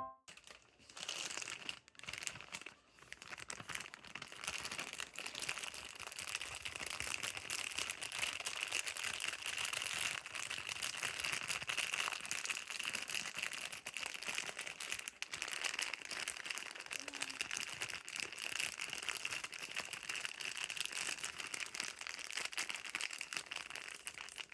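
Steady crinkling and rustling made up of many tiny clicks, from hands-on kitchen cleaning work.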